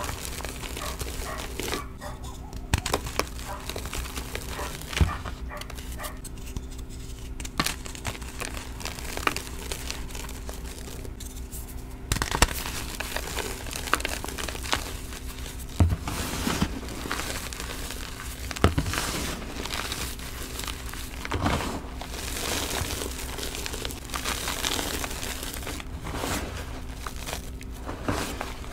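Hands crushing and crumbling slices of dyed gym chalk: dry, irregular crunching and crackling as the chunks break apart, with softer powdery crumbling as the fingers squeeze and press into the loose powder. A faint steady hum runs underneath.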